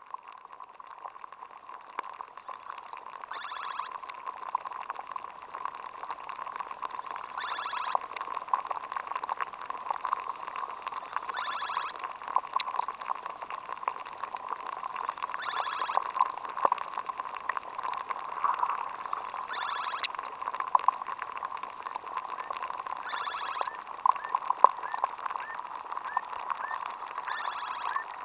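Aquatic insects recorded in a wetland fen: a dense, steady crackle of tiny clicks and ticks. A louder pulsed burst comes about every four seconds, and short chirps repeat about twice a second near the end.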